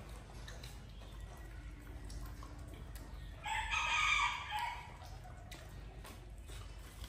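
A rooster crows once, a single call of a little over a second, starting about three and a half seconds in, over low, steady background noise.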